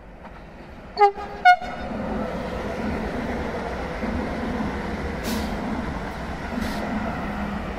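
A ČD InterPanter electric multiple unit gives two short horn toots about a second in, the second higher than the first. It then rolls past with a steady rumble of wheels on rail.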